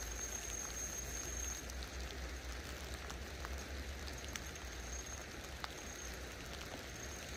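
Light rain falling on a river and its grassy bank: a steady soft patter with a few scattered drop ticks, over a low steady rumble.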